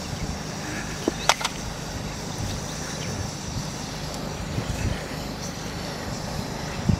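Steady low outdoor background noise with a few short clicks about a second in.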